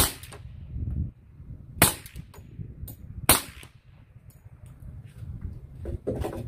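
Three suppressed shots from a Glock 20 10mm pistol with a SilencerCo Hybrid 46 suppressor, firing Ammo Inc. 180-grain full metal jacket rounds, spaced about a second and a half apart. There is no crack of the sound barrier, so the rounds must be subsonic. A few light knocks come near the end as the pistol is set down on the wooden bench.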